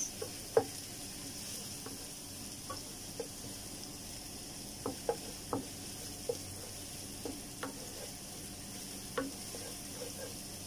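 Crushed ginger and garlic paste sizzling in hot oil in a nonstick frying pan, with a steady hiss, while a wooden spoon stirs it and knocks against the pan now and then.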